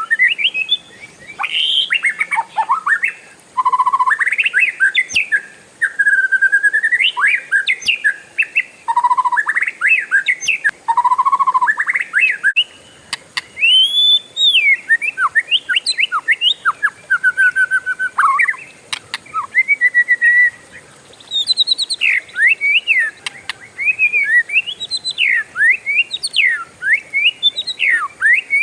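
Oriental magpie-robin (kacer) singing a long, continuous varied song of loud whistled phrases: rising and falling glides, fast trills and runs of repeated notes strung together with only brief pauses.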